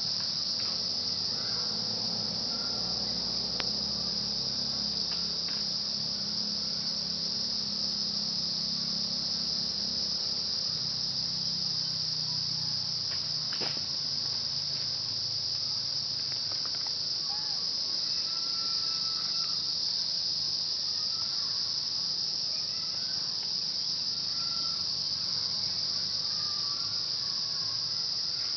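Steady, high-pitched insect chorus droning without a break, with a few faint short chirps underneath.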